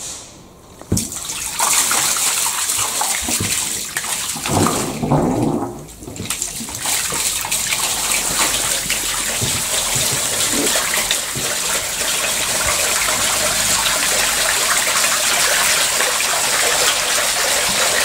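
Water gushing out of a large corrugated hose onto the concrete floor of a flood-test tank. It is a steady rushing splash that starts about a second in, dips briefly near six seconds and then runs on evenly as the tank fills.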